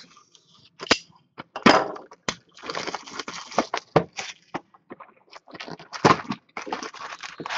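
Plastic shrink wrap on a hockey card box being slit with a box cutter and torn off: a few sharp snaps in the first two seconds, then bouts of loud crinkling and crackling as the film is pulled away and crumpled.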